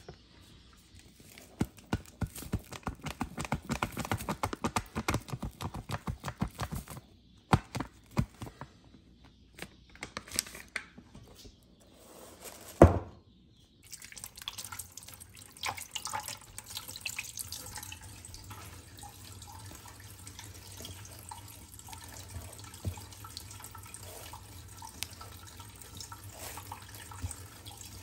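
Kitchen tap running water into the sink, a steady rush for the second half. Before it come a rapid run of clattering ticks, some scattered clicks, and one sharp knock just before the water starts.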